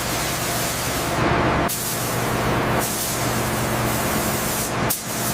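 A steady, loud hissing, like spraying or escaping compressed air, over a low mechanical hum. It breaks off and starts again abruptly three times.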